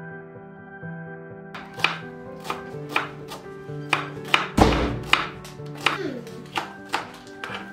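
Kitchen knife slicing a red onion on a plastic cutting board: crisp chops about two a second, starting about a second and a half in, with one heavier knock near the middle. Soft background music runs underneath.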